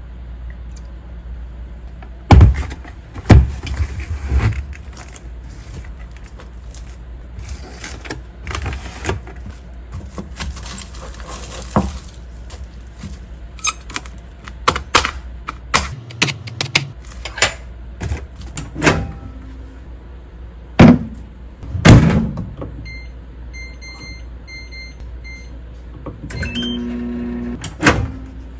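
Kitchen handling sounds: dishes and utensils knocking and clicking, with several loud thumps. A little past two-thirds of the way in comes a few short electronic beeps of a microwave oven, and near the end a short steady hum.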